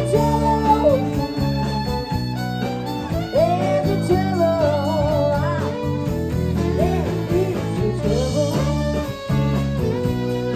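Live country band playing, with a fiddle and guitars over steady bass notes.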